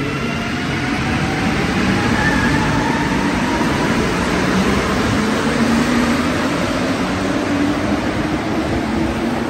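A rubber-tyred Montreal Metro Azur (MPM-10) train pulling out of the station. Its motor whine rises in pitch over the first few seconds, under a steady rumble as the cars run past.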